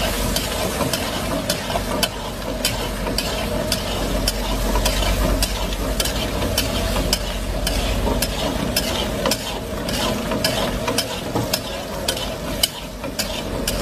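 A spoon stirs and scrapes mutton around a karahi (wok), knocking against the pan in irregular clicks, several a second. Underneath runs a steady sizzle as the meat and masala are fried (bhuna) on a low flame.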